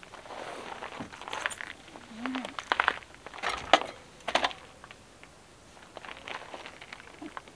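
Rustling with a series of light clicks and knocks, loudest between about three and four and a half seconds in.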